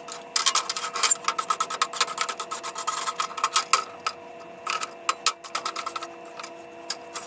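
Rapid, irregular scraping and clicking strokes, like metal being rasped or worked by hand, over a faint steady hum. The strokes thin out about four seconds in, then come back in scattered bursts.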